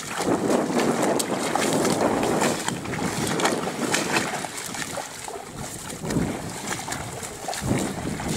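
Footsteps in rubber boots sloshing and splashing through shallow water and mud, over a steady hiss of rain.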